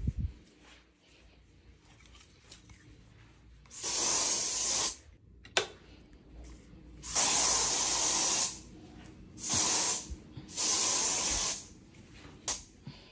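Aerosol spray can hissing in four separate bursts, each about one to one and a half seconds long. A sharp click comes between the first and second bursts.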